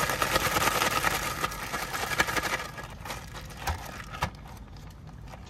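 Plastic bag rustling and crinkling as fish fillets are shaken inside it to coat them in flour and crumbs, most busily in the first two and a half seconds. After that it goes quieter, with a few light clicks and rustles as a coated fillet is pulled out of the bag.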